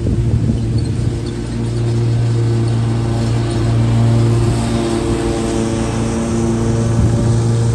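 Lawn mower engine running steadily at working speed, with a constant low drone.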